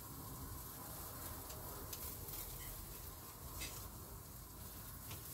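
Faint steady sizzle of skewered meat and vegetables cooking on a tabletop grill, with a few light clicks of metal tongs.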